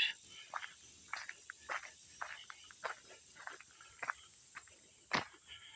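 Footsteps on a woodland hiking trail, short crunches about every half second, with one sharper crunch about five seconds in. A steady high insect drone runs behind them.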